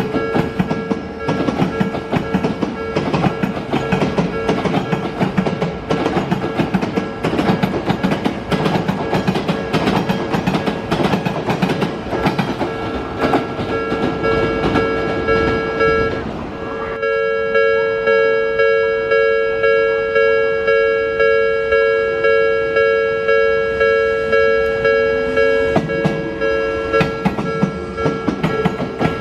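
Japanese level-crossing alarm bell ringing steadily while an Odakyu 8000-series train rolls past, its wheels clacking over the rail joints. After a sudden break about 17 seconds in, the crossing bell goes on alone with a pulsing ring about one and a half times a second. Train clatter builds again near the end.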